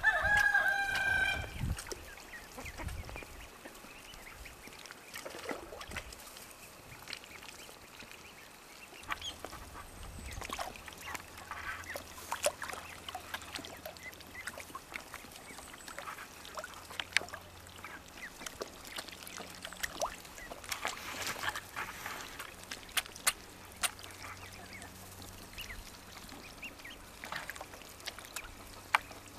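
Young Rouen ducklings in a shallow tub of water: one loud call in the first second and a half, then scattered splashes and small clicks as they dabble and drink.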